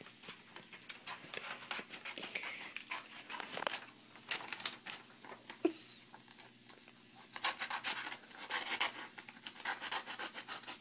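Scissors snipping through paper, a run of short crisp cuts with the sheet rustling. The snips slow for a moment past the middle, then come quickly, several a second, near the end.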